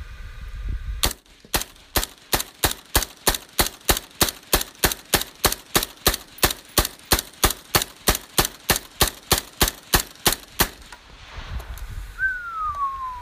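A rapid, evenly spaced string of sharp shots from a suppressed rifle, about three to four a second for roughly ten seconds, stopping abruptly. Near the end a single whistle falls in pitch.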